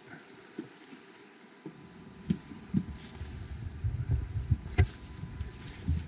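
Sailing yacht under way in a beam wind: wind rumbling on the microphone, which grows into gusty buffeting about two seconds in, with several sharp knocks.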